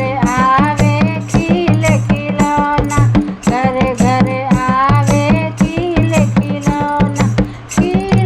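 A song with a voice singing over a steady, heavy drum beat.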